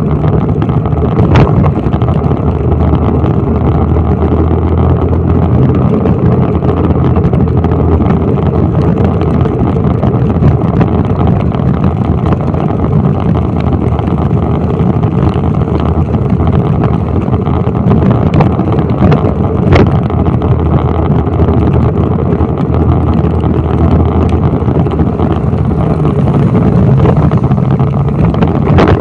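Steady, loud rumble of wind buffeting the microphone of a moving motorbike, mixed with its engine and tyre noise on the wet road, with a couple of brief clicks.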